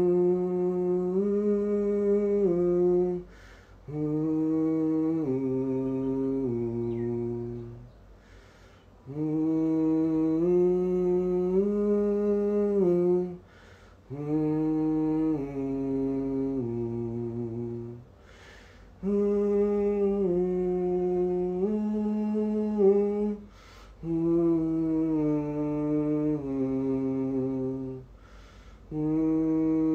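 Male voice humming a short wordless melody in stepwise phrases of about four seconds, each followed by a short breath gap, repeated over and over. It is a harmony part, a third, being recorded as a new layer over earlier vocal takes.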